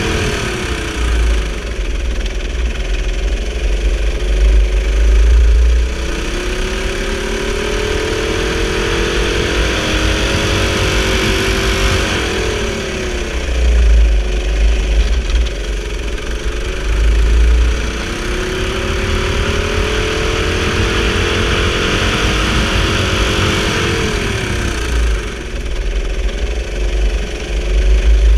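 Go-kart engine heard from the driver's seat, its pitch climbing slowly as the kart accelerates along a straight and then dropping sharply as the driver lifts off for a corner, twice, about twelve seconds apart. A deep rumble runs underneath.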